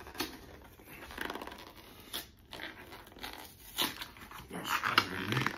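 Cardboard box being torn and ripped open by hand: a series of uneven rips and rustles, loudest near the end, with a short grunt about five seconds in.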